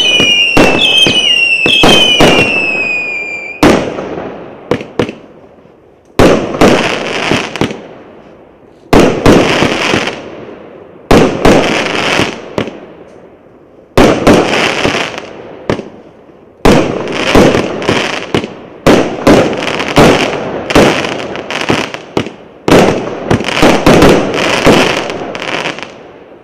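A 99-shot, 1-inch fireworks cake firing. It opens with a few shots trailing falling whistles, then single sharp bursts come every two to three seconds, each fading out in a crackling tail, and they come closer together near the end.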